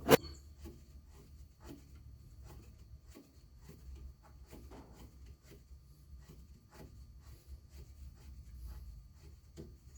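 A sharp click at the start, then a long run of faint, irregular ticks and scrapes of hand work on metal parts, over a steady low hum.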